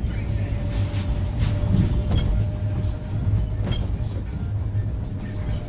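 Mercedes-Benz Sprinter minibus driving, heard from inside its cabin near the front: a steady low engine and road rumble with a faint steady whine, and a few light clicks and rattles from the fittings.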